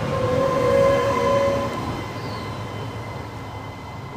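Trenitalia Pop electric train running away along the platform track, with rumble from the wheels and a steady ringing tone through the first couple of seconds. The sound peaks about a second in, then fades as the train recedes.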